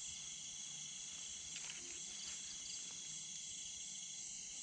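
Steady outdoor insect chorus, a continuous high-pitched trilling, with a few faint brief clicks near the middle.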